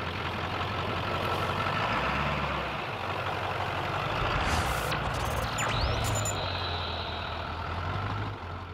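Lifted OBS Ford pickup's engine and exhaust running steadily as the truck is driven, fading out near the end.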